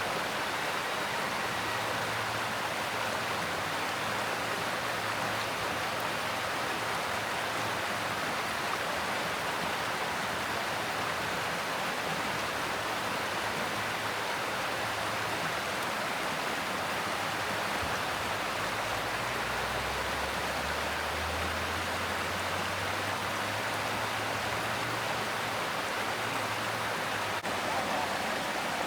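Mountain stream running with a steady, even rush of water.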